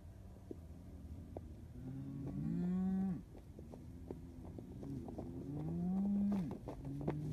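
Several cows mooing in overlapping calls, each a long low call that rises in pitch and drops away at the end, the two loudest ending around three seconds and six and a half seconds in. A few sharp clicks come in near the end.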